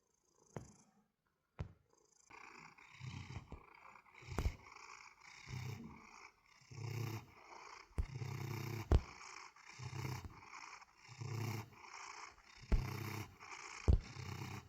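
Domestic cat purring, a rough, rumbling purr that starts about two seconds in and pulses about once a second with each breath in and out. A few sharp clicks stand out above it.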